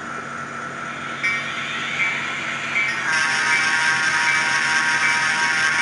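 Model diesel locomotives' sound-decoder speakers: a locomotive bell dinging a little more than once a second over a steady engine drone. About halfway through, a louder, fuller engine sound joins in.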